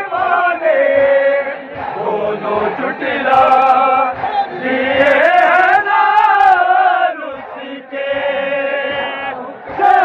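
A man chanting a noha, a Shia mourning lament, in long drawn-out sung phrases, with short breaks between phrases.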